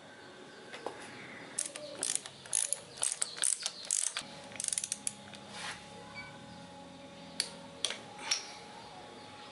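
Ratchet wrench clicking in quick runs while tightening bolts on an air-cooled motorcycle cylinder head, followed by a few single clicks near the end.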